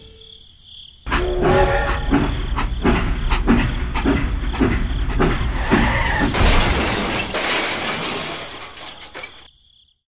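Toy steam locomotive's chugging sound: a rhythmic chuff about two to three times a second, turning into a hissing rush from about six seconds in, then stopping shortly before the end.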